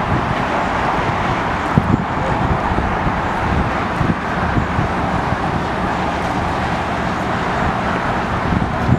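Steady distant roar of jet engines across the airfield, with wind buffeting the microphone underneath.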